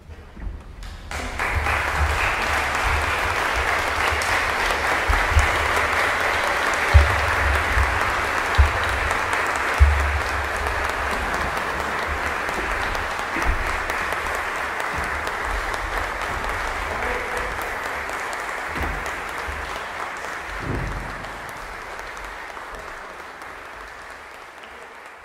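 Audience applauding as a concert piece ends, the clapping breaking out about a second in and fading near the end, with a few low thumps.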